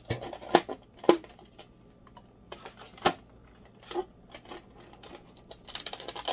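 Thin clear plastic clamshell container being handled: irregular sharp clicks and crackles of the plastic, with a quick cluster of them near the end.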